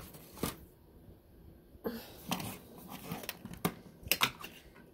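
Scattered light clicks and rustles of handling, from a handheld phone and the crocheted fabric being moved, with a sharper pair of clicks about four seconds in.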